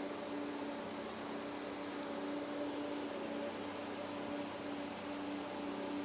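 High, thin calls of small woodland birds: short notes scattered through, with a quick run of notes about five seconds in, over a steady hiss. A single sharp click comes near the middle.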